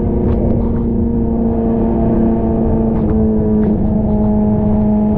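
Kawasaki ZX6R's inline-four engine running at steady cruising revs, its pitch easing down slightly about three seconds in, over a constant rush of wind and wet-road spray in heavy rain.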